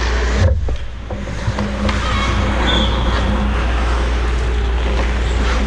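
Ice hockey rink sound heard from the goal: skates scraping the ice and sticks clacking over a steady low rumble, with a thud about half a second in.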